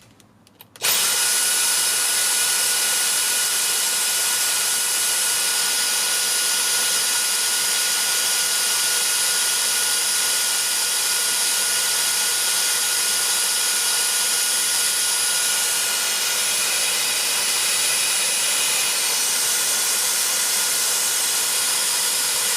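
Dyson DC45 cordless stick vacuum switched on about a second in and running steadily with a high-pitched motor whine. It does not cut out on its newly fitted replacement battery.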